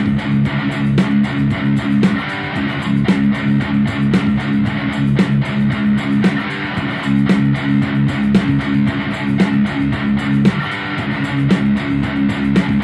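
Background music: guitar-based instrumental with held bass notes and a steady beat.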